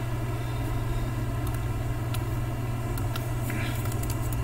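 Steady low electrical hum from the recording setup, with a few scattered sharp clicks from a computer mouse and keyboard as a web page is clicked through and text is typed.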